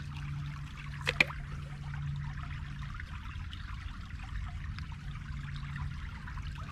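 Creek water trickling and running steadily, with a low steady hum underneath and one brief sharp click about a second in.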